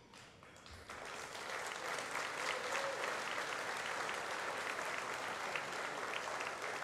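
Audience applause that swells up about a second in and then holds steady.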